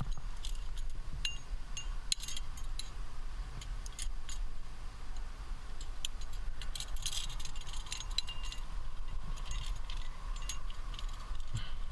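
Trad climbing rack of cams and carabiners clinking and jangling on the harness as the climber moves, in scattered irregular clinks with short metallic ringing, over a steady low rumble.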